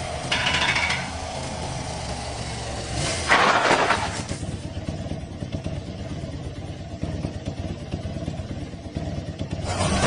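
Motorcycle engine running with a steady low note. A short hiss comes about half a second in, and a louder rushing burst at about three seconds, after which the engine's low note drops away.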